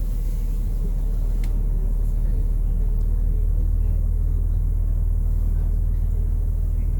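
Steady low rumble of a tour boat's engine, with no change in level.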